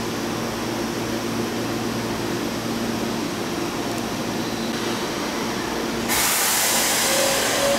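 Keisei 3700 series electric train standing at the platform with a steady hum from its equipment. About six seconds in, a loud hiss of air starts suddenly. Near the end, the rising whine of its GTO-VVVF inverter begins as the train starts to pull away.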